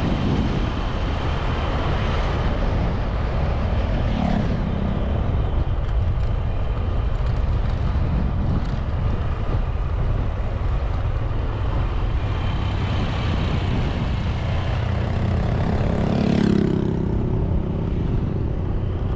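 Motor scooter ride: the engine and road noise run steadily under heavy wind buffeting on the microphone. A louder passing whoosh comes about 16 seconds in.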